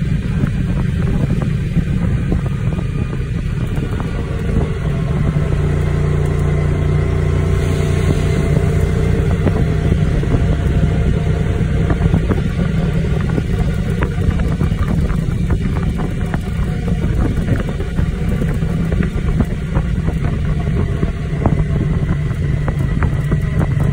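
Motorcycle engine running steadily at riding speed, with a steady low rumble of wind and road noise underneath.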